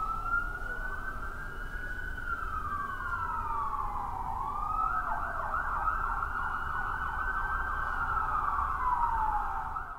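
Emergency vehicle siren wailing in slow rising and falling sweeps, switching to a faster warble about five seconds in and back to a slow sweep near the end, over a low rumble; it cuts off abruptly at the end.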